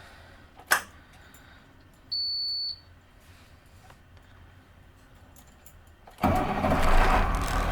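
International school bus being started: a click, a single short high-pitched beep about two seconds in, then a few seconds later the engine starts and runs loudly.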